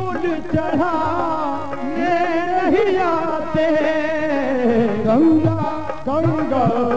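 Qawwali music: a male lead singer drawing out a long, ornamented wavering vowel line over harmonium, with hand-drum (dholak) strokes underneath.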